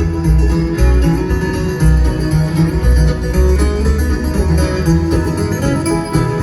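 Acoustic bluegrass band playing an instrumental break, guitar picking over a steady pulsing bass.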